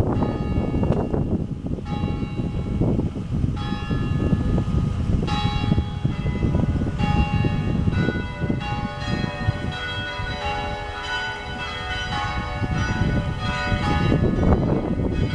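St. Philip's Church bells ringing, stroke after stroke, with the strikes crowding together and overlapping through the middle, over a steady low background noise.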